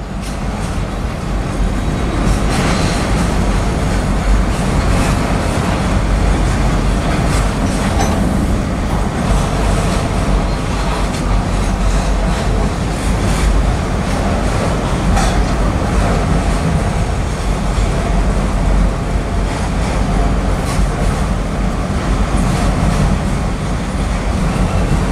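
Autorack freight cars rolling past close by: a loud, steady rumble of steel wheels on rail, with a sharp clack from the wheels now and then.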